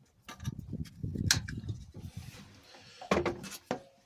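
Handling noises from fuel pipe and tools being worked in a cramped space: an irregular run of knocks, clicks and scraping, with the sharpest knocks about a second in and a cluster near three seconds.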